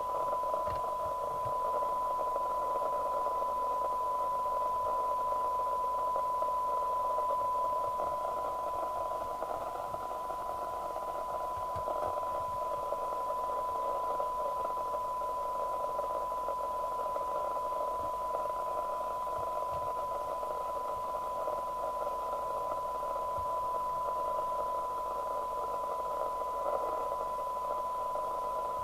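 LCL Communicators NI440DX FM CB radio receiving a test signal: a steady test tone from the set's speaker over a bed of receiver hiss, as the receiver front end is aligned.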